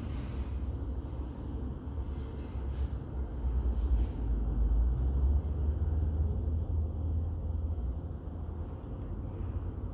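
Wood fire burning in the firebox of a TMF Viziera clean-burning fireplace: a steady low rumble of the flames that swells for a couple of seconds midway, with a few faint crackles.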